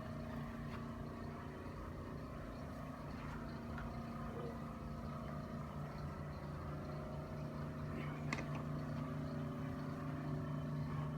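Steady machine hum, a low drone that swells slightly toward the end, with one short click about eight seconds in.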